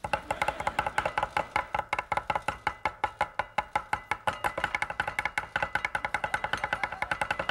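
A cleaver mincing beef on a wooden chopping board in rapid, steady strokes, about eight to ten a second, each with a brief ringing knock.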